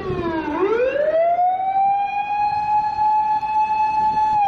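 Fire engine siren wailing: the tone slides down, swoops back up about half a second in, holds high for several seconds, and begins to fall again near the end.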